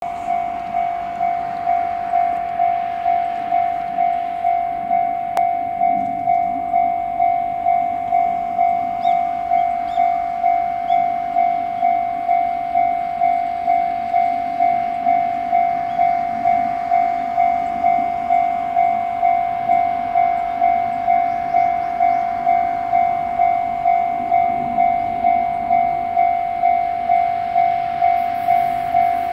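Electronic railway level-crossing warning bell ringing steadily, a single ding repeated about one and a half times a second.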